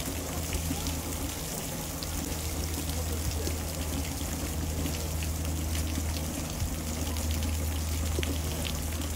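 Water from a hose spraying and spattering onto a wet emu and the muddy ground: a steady hiss of spray with scattered drip ticks, over a steady low hum.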